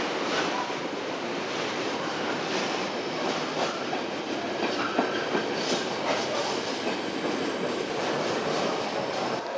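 Container freight train passing close by at steady speed: a continuous rolling rumble of the wagons with frequent clicks and clatter as the wheels run over rail joints.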